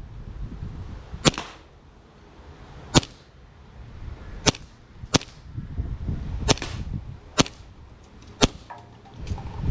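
JG Works Hi-Capa 4.3 green-gas gel blaster pistol firing seven sharp shots at uneven intervals of about a second.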